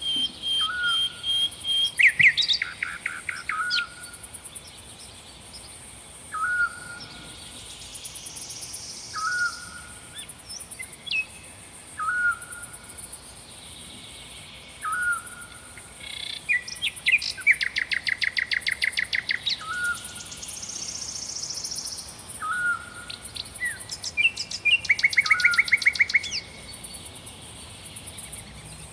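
Several songbirds singing. One bird repeats a short call every two seconds or so, while others give loud, fast trills at about two seconds in, in the middle and near the end. A continuous high insect buzz runs underneath.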